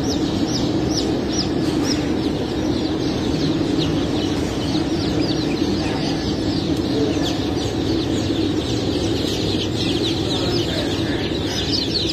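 Crowd of hybrid Cảo chicks peeping all at once, a dense chorus of short, high, falling cheeps, over a steady low hum.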